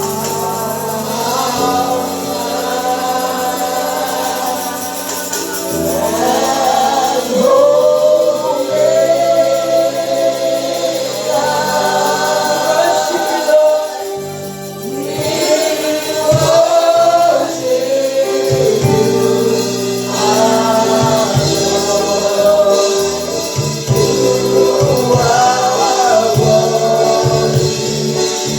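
Gospel worship music: a group of voices singing a slow melody over sustained keyboard chords, with a tambourine.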